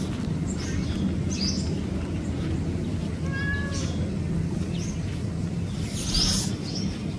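A cat meowing several times in short, separate calls over a steady low background hum.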